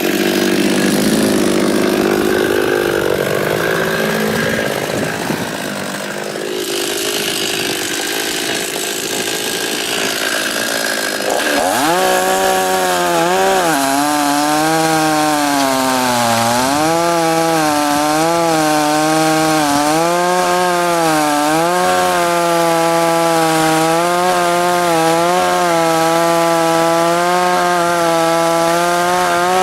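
52cc Chinese two-stroke chainsaw with a 20-inch bar cutting willow logs. The engine note is rough and uneven at first. About a third of the way in it revs up, then holds high, its pitch dipping again and again as the chain bites into the wood.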